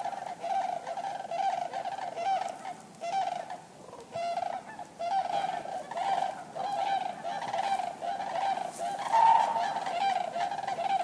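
Common cranes calling: many overlapping, repeated calls from a group, with a brief lull about four seconds in and louder, slightly higher calls near the end.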